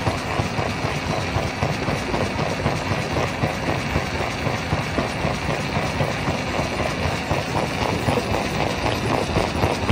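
Rock crusher running and crushing stone: a steady heavy machine drone under a dense, continuous clatter of rock.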